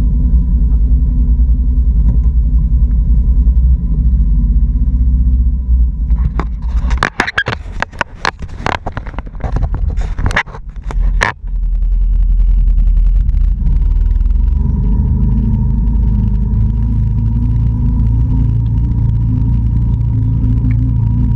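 Can-Am Outlander 650 ATV's V-twin engine running steadily, broken for about five seconds near the middle by a run of loud knocks and clatter. After that the engine runs on, pulling harder with its pitch stepping up slightly about two thirds of the way through.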